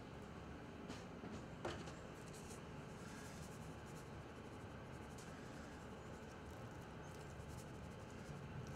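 Faint scratching and rattling of a spice shaker as dry barbecue rub is shaken onto a pork bone, over a steady background hiss, with a few light clicks in the first two seconds.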